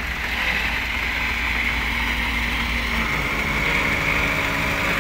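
Diesel tractor engines running steadily while chained up to tow a loaded trailer bogged down in soft sand.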